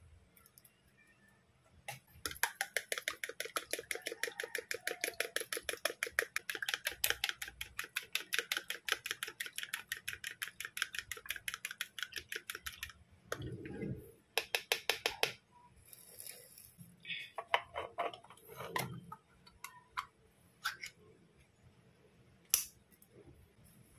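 A fork beating raw eggs in a plastic bowl: a fast, even tapping of metal on plastic, about five or six strokes a second, that runs for about ten seconds and stops about halfway through. After it come scattered knocks and clinks of handling, with a sharp click near the end as the sardine can's pull-ring lid is opened.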